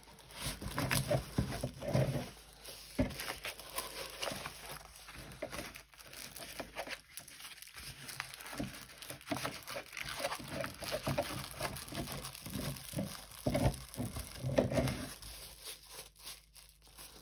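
Crinkling and rustling of a diamond painting canvas and its plastic cover film as it is rolled back around a tube and pressed flat on a table, to take the curl out of it. There are a few sharper taps among the irregular rustling.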